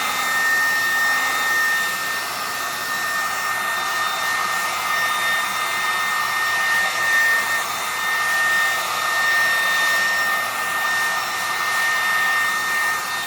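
Handheld hair dryer blowing continuously: a steady rush of air with a constant high whine, its loudness swelling and dipping slightly.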